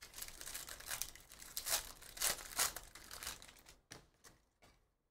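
Foil wrapper of a Panini Donruss basketball hobby pack being torn open and crinkled, a dense crackling rustle that stops shortly before the end.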